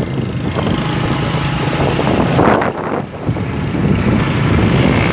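A vehicle's engine running steadily on the move, with wind rushing over the microphone and a stronger gust about two and a half seconds in.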